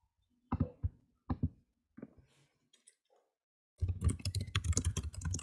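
Computer keyboard being typed on: a few separate clicks, then rapid continuous key presses starting about four seconds in.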